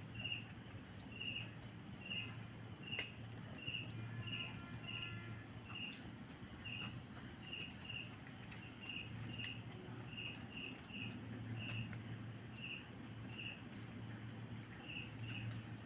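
An insect chirping in short, high chirps, about one or two a second at an uneven pace, over a low, steady hum, with a few faint clicks.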